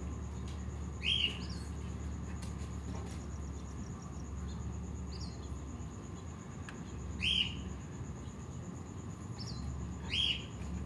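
A bird chirping outdoors, a few short calls about three times, over a steady low background hum and a faint continuous high-pitched tone.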